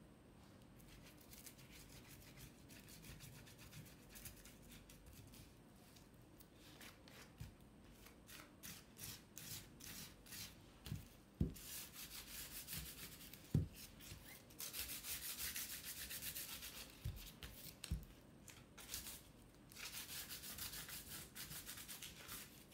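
Quick rubbing strokes on the tissue-paper-covered edges of a stretched canvas as thick rust paste is worked in, coming denser and louder in the second half, with a few light knocks.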